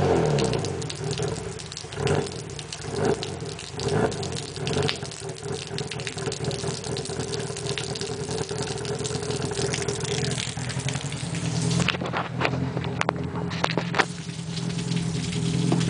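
Cammed Hyundai Tiburon V6 heard at the tailpipes, settling from a rev back to idle at the start, with a few short throttle blips in the first few seconds, then idling steadily. A few sharp clicks near the end.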